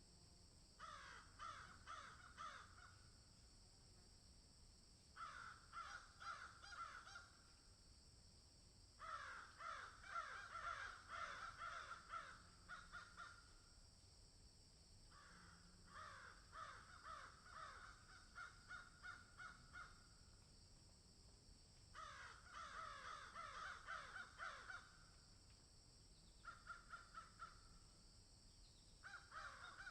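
A bird giving repeated bursts of rapid, harsh calls like cawing. Each burst lasts a few seconds, with short pauses between them.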